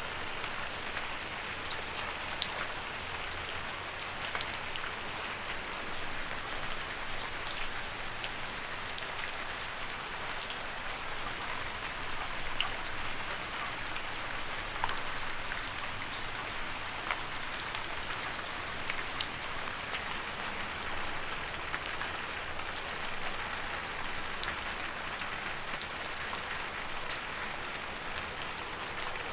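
Steady rainfall, a continuous patter with many individual drops ticking sharply throughout.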